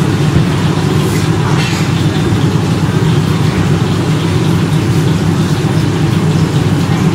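A steady low rumble of background noise with no distinct events, the kind of din that traffic or a gas burner makes.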